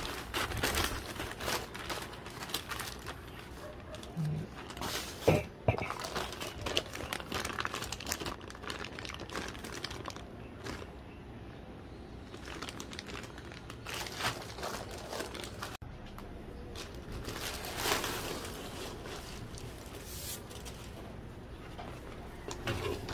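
Plastic packaging bags being handled and opened: irregular crinkling and rustling, with a couple of sharper, louder crackles about five or six seconds in.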